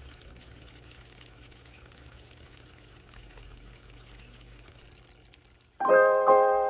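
Water trickling and splashing faintly from a paludarium's small waterfall. Near the end, piano music comes in much louder.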